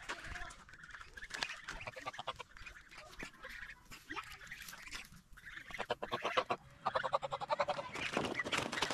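Domestic geese honking and calling while they swim and splash in a shallow pond, the calls coming in quick runs and growing louder and more crowded near the end.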